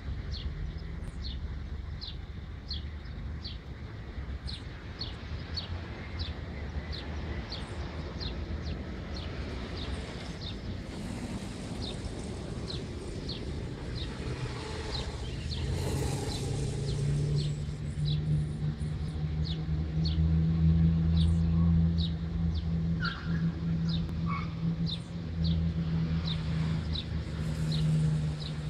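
A bird chirping over and over, a short high note about one and a half times a second. Under it a low engine hum that gets much louder about halfway through and stays loud.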